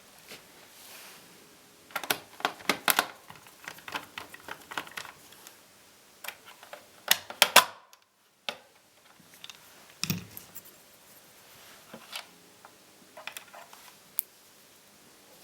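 Irregular sharp clicks and taps of small plastic and metal laptop parts being handled during repair work, in clusters, with the loudest bursts about two seconds in and again about seven seconds in.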